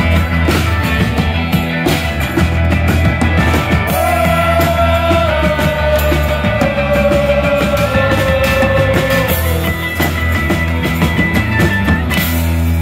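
Live rock band playing loud: acoustic and electric guitars, accordion and drums. A long held lead note enters about four seconds in and slowly drifts lower before fading near ten seconds.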